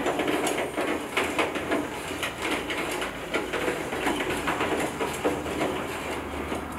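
Window roller shutter being lowered with a hand crank: the slats clatter and rattle steadily as it rolls down. The sound stops abruptly at the very end.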